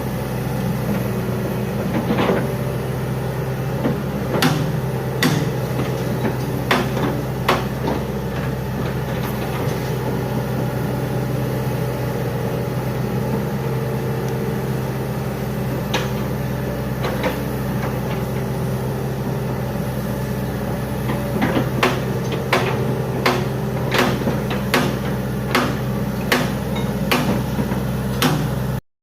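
Hitachi Zaxis 110 excavator's diesel engine running steadily, with scattered sharp metallic knocks and clanks from the machine working, coming thicker over the last several seconds. The sound cuts off abruptly just before the end.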